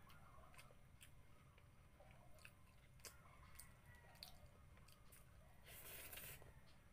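Faint close-up eating sounds of someone eating rice and fish by hand: soft chewing with scattered small wet mouth clicks, and a short louder rush of noise about six seconds in as a handful goes into the mouth. A low steady hum sits underneath.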